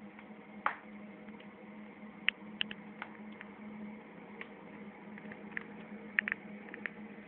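Sparse, irregular sharp crackles from a wood fire in a fireplace, over a steady low hum.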